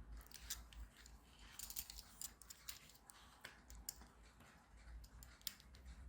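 Faint, scattered clicks and light taps from a small plastic security-tag case being handled and turned in the fingers.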